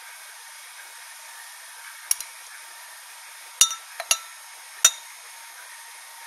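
About five sharp, briefly ringing clinks between two and five seconds in, as a thermometer's plastic sleeve and metal probe knock against a glass beaker, over a steady hiss.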